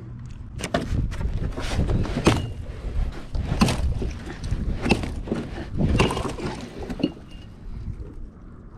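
Hooked largemouth bass thrashing in a hole in thin ice, water splashing and sloshing in a rapid, irregular series that dies down near the end.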